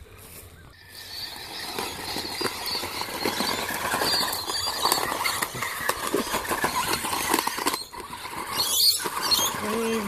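Remote-control monster ball toy's small electric motor whining steadily as the toy tumbles across grass and dry leaves, with the leaves crackling under it. The whine starts about a second in.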